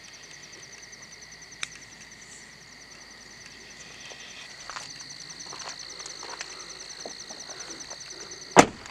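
Night insects chorusing: a fast, even, high pulsing trill over a steady high insect drone. A small click comes about one and a half seconds in, and a sharp, loud knock comes near the end.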